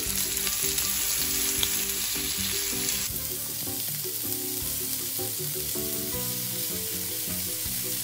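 Thin strips of beef steak sizzling steadily as they sear in hot oil in a nonstick frying pan, moved about with tongs. The pan holds only a few pieces so the meat browns rather than letting out its juice.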